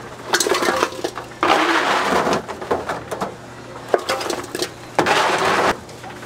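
A plastic scoop scraping across a wire mesh rack and tipping crunchy oranda gangjeong bars into a stainless steel bowl. The hard pieces rattle and clatter against the metal in several separate rushes, with a few sharp clicks between them.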